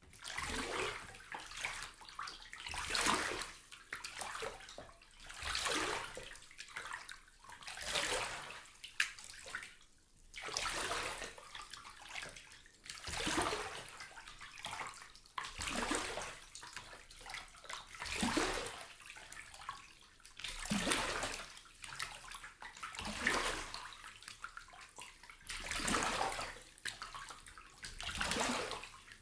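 Water in a filled bath being swept back and forth by hand, sloshing in a steady rhythm that swells about every two and a half seconds, made as a Foley imitation of waves lapping on a shore.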